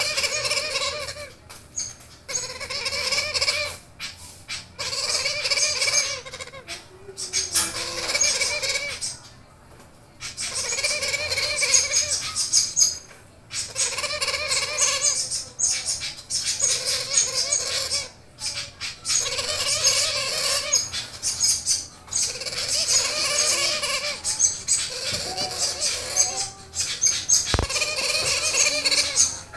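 Blue-headed parrot (Pionus) chicks about a month old, giving harsh, raspy begging calls. Each call lasts about a second and they come one after another every couple of seconds, with a few brief pauses.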